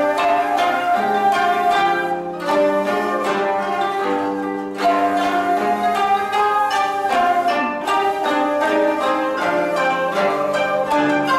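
Japanese ensemble of koto, including the low 17-string koto, with shamisen and shakuhachi, playing a busy passage of quick plucked notes over held flute tones.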